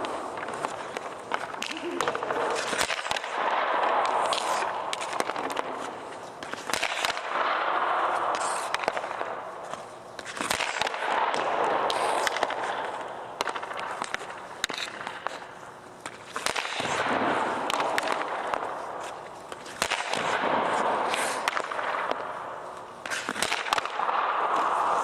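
A hockey drill on an ice rink: a shooter fires puck after puck at a goaltender. Sharp cracks of stick on puck and puck off the goalie's pads come with swells of scraping on the ice, repeating about every four seconds.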